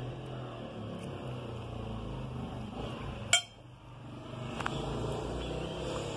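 A person quietly chewing a mouthful of instant noodles, with a single sharp clink about three seconds in and a couple of fainter ticks around it.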